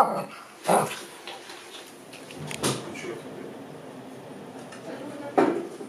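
Three short knocks about two seconds apart, the first and last the loudest, over faint room noise.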